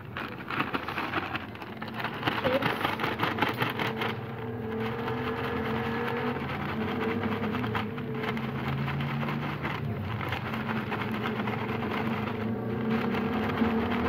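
Plastic zip-lock bag of crushed ice and salt rustling and crackling as it is handled, busiest in the first few seconds, over a steady low hum.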